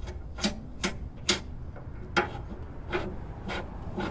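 Seven sharp clicks at uneven intervals about half a second apart, from a hand wrench turning the rear toe adjuster of a Pontiac Fiero's suspension, metal on metal.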